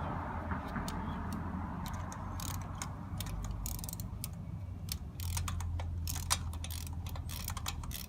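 Ratchet wrench clicking in irregular runs of sharp ticks while working a spark plug, over a steady low hum.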